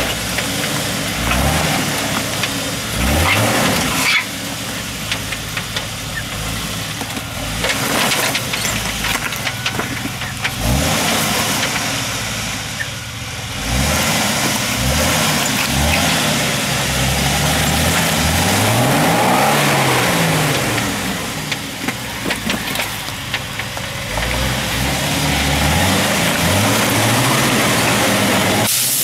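Jeep Wrangler Rubicon's engine revving up and dropping back again and again as it crawls over rocks, with scattered knocks and scrapes from the tyres and underside on the rock.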